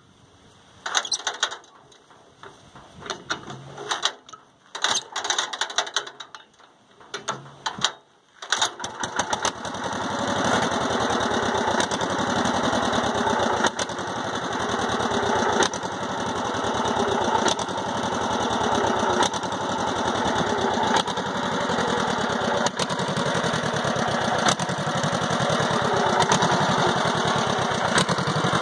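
Small air-cooled gasoline engine pull-started by its recoil rope: several pulls over the first eight seconds, then it catches and runs. It runs with a slight surge, which the owner puts down to bad gas in the tank.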